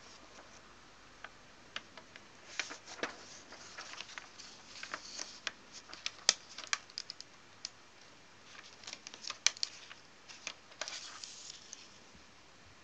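Sheets of drawing paper being handled and lifted from a taped board: irregular crackles, sharp clicks and short rustles of paper.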